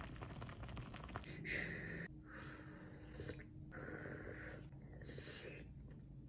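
Spicy fish soup bubbling faintly in a hot black stone pot, with fine crackling pops at first. Then a person breathes out in several separate short puffs, each about a second long.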